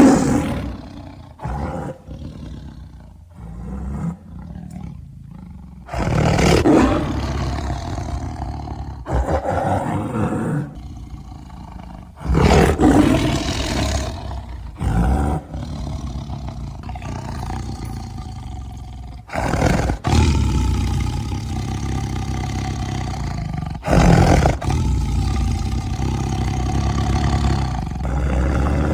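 A string of loud, deep monster-style roar sound effects. A fresh roar cuts in abruptly every few seconds and tails off before the next.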